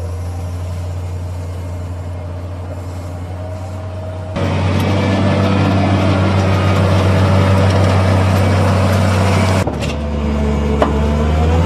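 Case 621F wheel loader's diesel engine running steadily as it pushes and spreads chopped maize over a silage pit. The sound changes abruptly about four seconds in and again near ten seconds.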